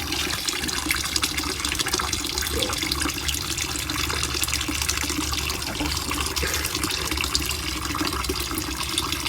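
Steady running, splashing water.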